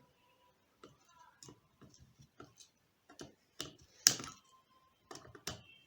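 Irregular clicks and ticks of a Victorinox pocket-knife flat screwdriver working a self-tapping screw, the tip held at an angle because it is wider than the screw's slot. One click about four seconds in is much louder than the rest.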